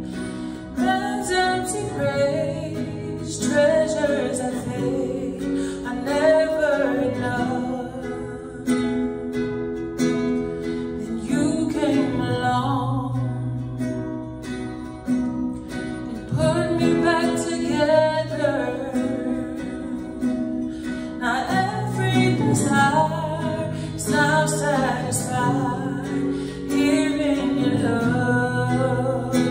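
A woman singing solo, accompanied by an acoustic guitar.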